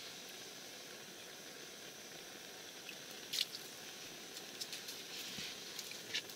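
A freshly caught small fish flopping on snowy ice, a few soft slaps and taps over a steady low hiss; the loudest slap comes about halfway through.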